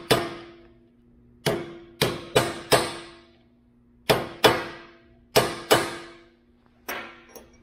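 Hammer striking a cold chisel to cut off a steel fuel return tube on a fuel pump hanger held in a vise: about ten sharp metal blows, mostly in pairs, each followed by a ringing tone.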